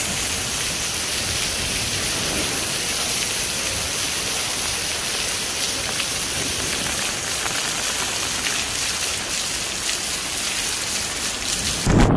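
Heavy rain falling hard, with water pouring off a roof edge and splashing: a dense, steady hiss. Near the end a sudden low rumble cuts in.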